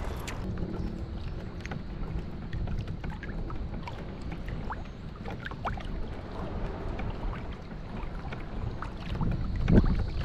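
Wind on the microphone and water lapping against a kayak hull, a steady low rush with scattered small clicks. A louder surge comes near the end.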